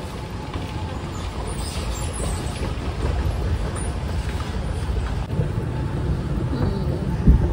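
Steady low rumble of a moving walkway and then an escalator in a large airport hall, growing slightly louder, with a single thump near the end.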